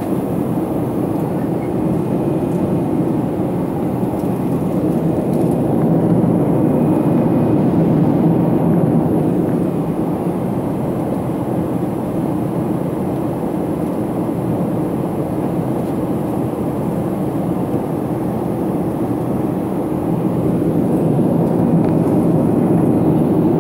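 Steady low drone of airflow and engines inside a Boeing 777 airliner cabin in flight, swelling slightly a couple of times.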